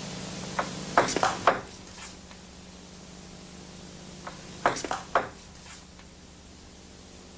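Table tennis ball clicking off the table and the bats in two short quick exchanges of about four hits each, the first about a second in and the second around five seconds in, over a steady background hiss and hum.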